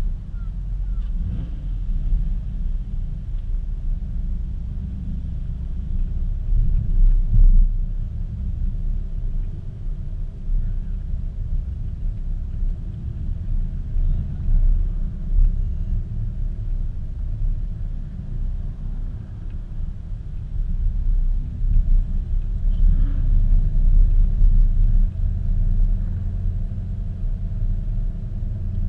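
Car engine and exhaust running at low speed, heard close up from the rear of the car: a steady low rumble throughout.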